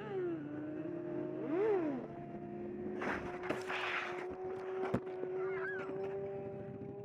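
Vehicle engine running steadily, revved up and back down briefly about one and a half seconds in. A loud burst of rushing noise follows around the middle, then a single sharp knock.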